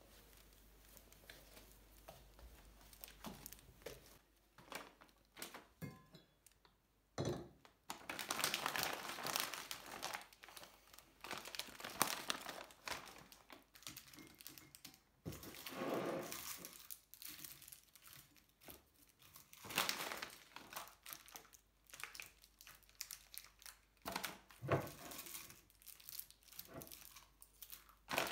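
Packaging crinkling and rustling as it is handled, in irregular bursts of crackle with short pauses between them.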